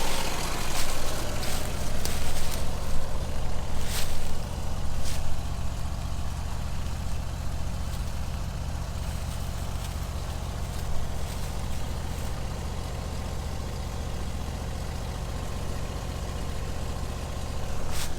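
Vermeer SC362 stump grinder's engine running steadily, with a few sharp clicks in the first few seconds and once near the end.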